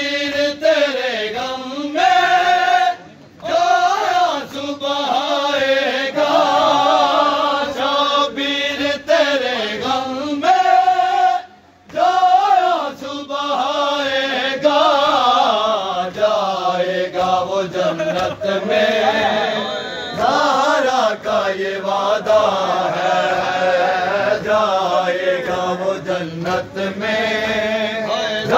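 A group of men chanting an Urdu noha (mourning lament) in unison, with open-hand chest-beating (matam) keeping the beat. The singing breaks off briefly twice, about three seconds and twelve seconds in.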